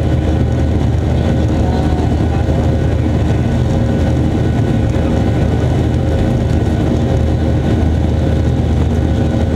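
Cabin noise of a Boeing 737-800 climbing after takeoff: its CFM56-7B turbofan engines' steady drone with a deep rumble and a faint steady hum, as heard inside the cabin.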